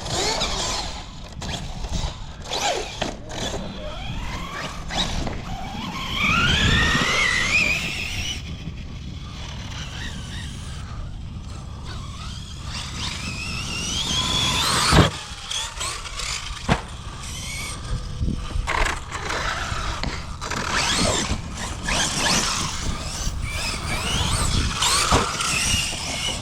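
Large 6S brushless RC trucks running, their motors whining and rising in pitch as they accelerate, with many short knocks and clatters and one loud hit about fifteen seconds in.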